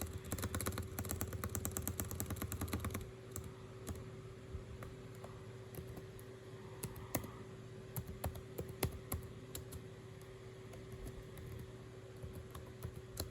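Typing on a computer keyboard: a quick run of keystrokes for about three seconds, then scattered single key clicks, over a faint steady hum.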